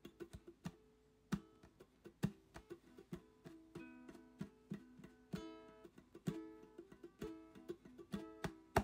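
Background instrumental music of a plucked string instrument, many quick picked notes in a light melody.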